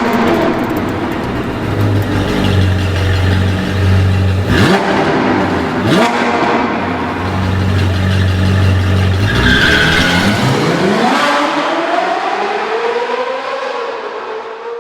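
A car engine revving, rising in pitch several times, with a couple of sudden sharp hits, fading out near the end.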